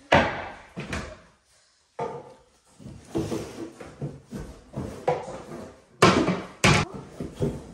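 Wooden toy kitchen cupboard doors knocking and thudding as they are opened and shut and toy groceries are put inside. There is a sharp knock at the start, more at about one and two seconds in, and the loudest two bangs come close together about six seconds in.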